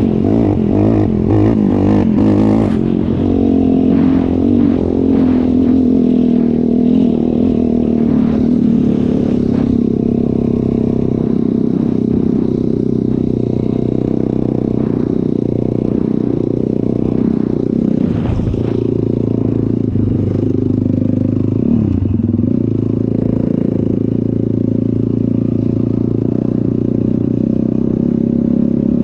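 ATV engine running under way, its pitch drifting up and down a little with the throttle. Rattles and scrapes come through mostly in the first ten seconds and again about eighteen seconds in.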